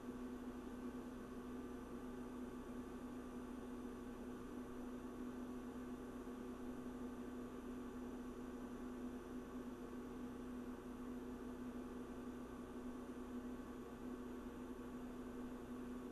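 A steady electrical hum with a faint hiss under it, unchanging throughout.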